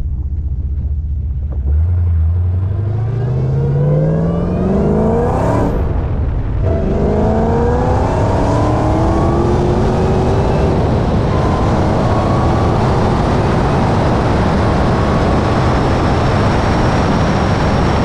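V8 car engine and exhaust under full-throttle acceleration. It runs low and steady at first, then from about two seconds in revs up hard, the pitch climbing through each gear. There is a brief drop at a gear change about six seconds in and another run after it, and at high speed a steady rush of wind and road noise joins in.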